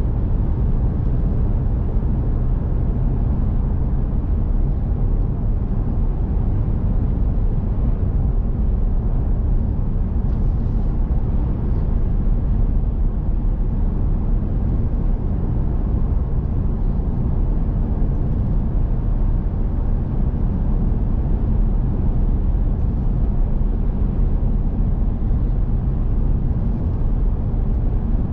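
Steady engine and tyre-on-road noise inside the cabin of a vehicle driving along a highway, a deep, even rumble that holds constant.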